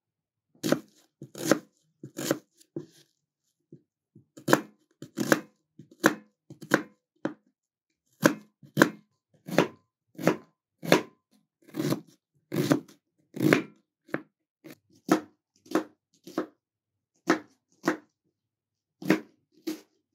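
Kitchen knife cutting through an onion onto a plastic cutting board: single crisp cuts, about one or two a second, with a couple of short pauses between runs.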